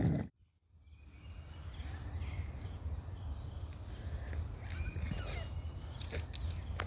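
Forest ambience: a few faint bird chirps about halfway through over a steady high insect hum and a low rumble, after the sound drops out briefly near the start.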